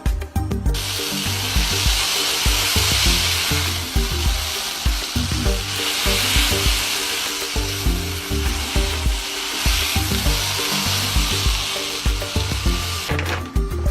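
A steady sizzling hiss, like food frying, that starts just under a second in and stops about a second before the end. Background music with a steady low beat plays under it.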